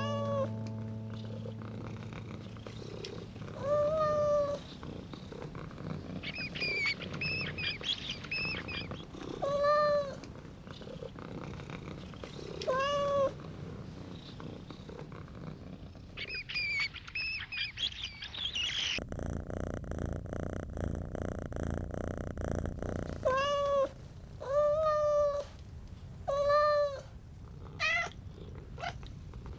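A cat meowing: about eight separate calls, each rising and falling in pitch. Between them come clusters of high-pitched squeaks, and a few seconds of low purring around the middle.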